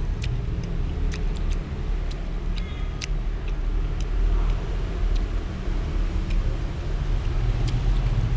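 Steady low rumble of nearby road traffic, with a few sharp clicks of a metal spoon against the plate.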